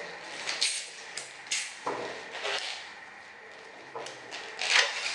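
Latex twisting balloon being handled and knotted: several short rubbery squeaks and rubs of the inflated balloon as it is stretched and its neck is tied off, the loudest near the end.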